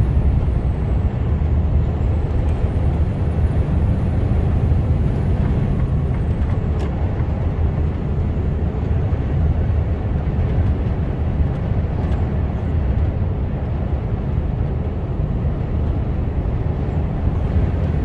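Steady engine and road noise of an HGV lorry driving along at speed, heard inside the cab, heaviest in the low rumble.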